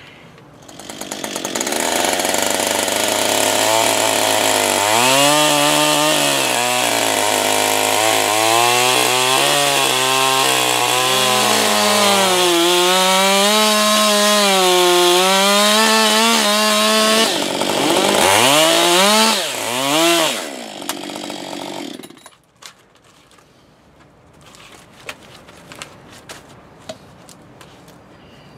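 Two-stroke chainsaw ripping lengthwise through a goat willow log to cut a plank freehand. The engine's pitch wavers under load, then rises and swings up and down before the saw stops, leaving a few faint knocks.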